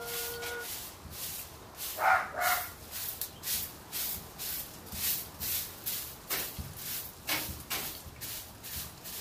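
A broom sweeping in quick, regular swishing strokes, about two to three a second. A hen gives one short call about two seconds in.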